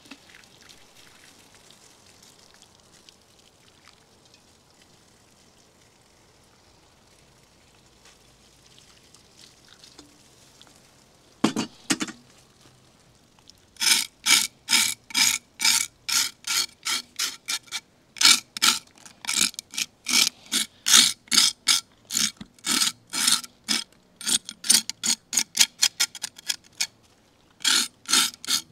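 A knife scraping along a sturgeon's skin in loud, rasping strokes, about two to three a second, with a short break near the end. Before this comes a faint trickle of water poured from a kettle over the fish, then a couple of knocks.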